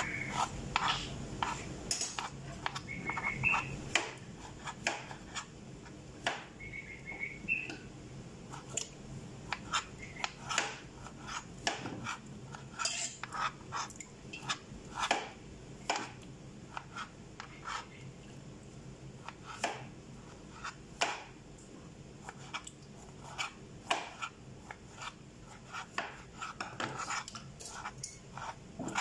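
Kitchen knife slicing pickled gherkins on a plastic cutting board: a run of sharp, irregular taps as the blade strikes the board, one or two a second.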